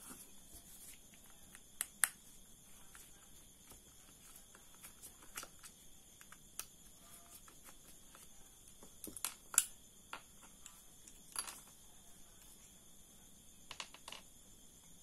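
Scattered small clicks and taps of spinning-reel rotor parts and a small screwdriver being handled, about a dozen separate clicks, the loudest about two seconds and nine and a half seconds in. Underneath, crickets chirp steadily in a high-pitched drone.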